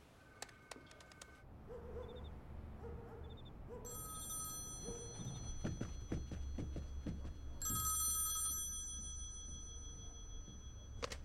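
A home landline telephone bell ringing twice, each ring about a second long. The rings are preceded by the clicks and short tones of a call being dialled and a faint trilling ring tone in the earpiece, and between them are footsteps as someone walks to the phone.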